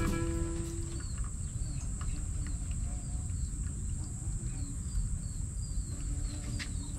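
Coffee dripping from a stainless-steel cone dripper into a steel mug of coffee: small plinks about twice a second. Under it runs a steady high insect drone, and a piece of background music fades out in the first second.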